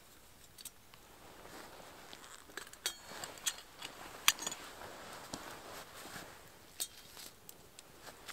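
Metal camp cup and gear being handled: a few sharp metallic clinks with a short ring, the loudest about halfway through, among softer scattered ticks.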